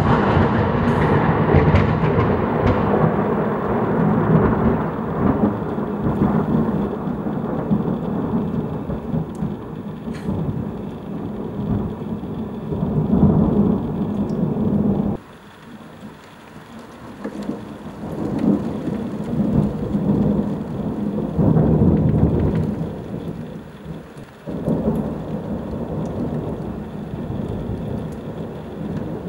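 Thunder from close lightning over heavy rain: a loud crack right at the start rolling into a long rumble that cuts off suddenly about halfway. A second rumble swells and fades, then steady rain and lower rumbling continue.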